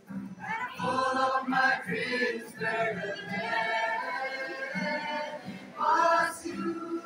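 Mixed choir of boys and girls singing together, a phrase rising louder about six seconds in.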